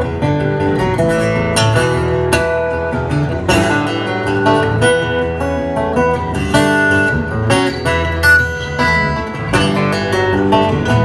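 Acoustic guitar played live, a quick run of changing notes over sustained electric bass notes.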